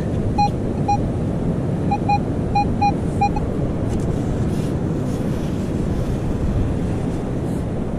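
Strong wind buffeting the microphone, with a Minelab Manticore metal detector giving a string of short, identical beeps, some in quick pairs, during the first three and a half seconds as it is swung over targets.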